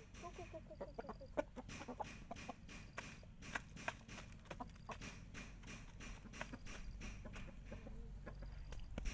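Chickens pecking grain from a plastic feeder tray: a quick, irregular run of sharp taps, several a second. Low, soft clucks come just after the start and again near the end.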